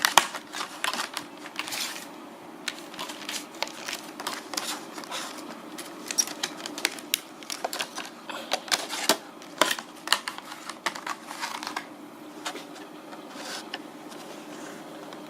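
Irregular small clicks and clacks from hands working the 5K iMac's rear memory compartment and its RAM modules, thinning out about twelve seconds in. A faint steady hum runs underneath.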